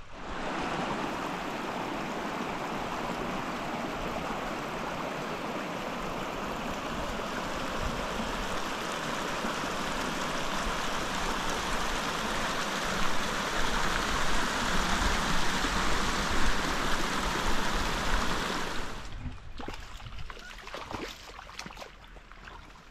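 Water running steadily in a small irrigation channel, falling away about nineteen seconds in. Then a few scuffing clicks of footsteps on a dirt path.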